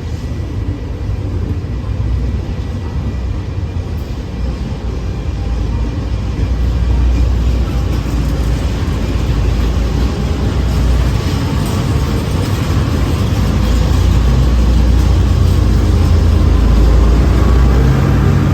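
Heavy diesel engine running with a deep, steady rumble that gradually grows louder.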